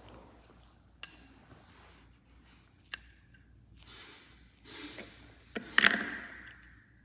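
Small hard clinks and taps of nail-salon tools and containers: two single clinks with a short ring, then a brief rustle and a louder clinking clatter with a ringing tail near the end.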